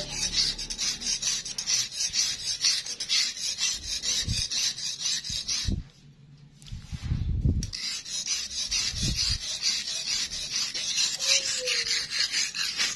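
Steel knife blade being sharpened on a wet whetstone: repeated scraping strokes of the blade across the stone. About six seconds in, the strokes stop for roughly two seconds, with a few dull knocks around the pause, then carry on.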